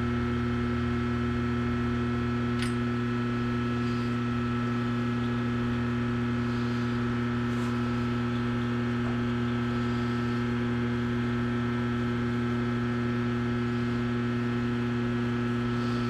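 Steady electrical mains hum, a constant low buzz with several fixed overtones that does not change, with a couple of faint ticks.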